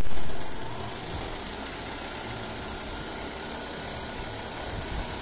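Juki LZ-2290 single-needle industrial zigzag sewing machine running steadily as it stitches fabric, louder in the first half second. It stops near the end.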